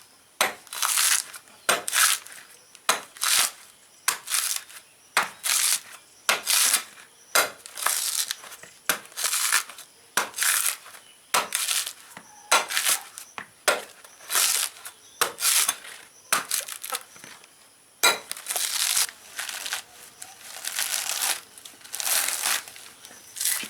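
Cooked rice being mashed and kneaded by hand, a rhythmic squishing and crushing a little faster than once a second, with one sharp click about 18 seconds in. The rice is being worked soft before milk is added.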